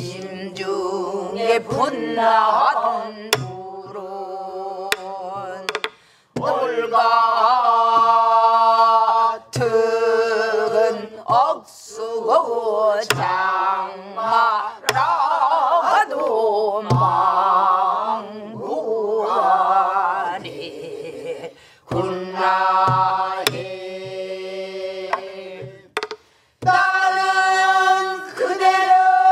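A group of voices led by a woman singing a Namdo folk song (southern Korean minyo) with heavy wavering vibrato, in long phrases broken by short pauses. Sparse sharp strikes on a buk barrel drum mark the beat.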